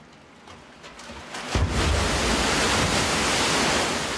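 Man-made tsunami wave surging down a large concrete wave flume. It comes in suddenly about one and a half seconds in with a deep rumble, then becomes a loud, steady rush of water.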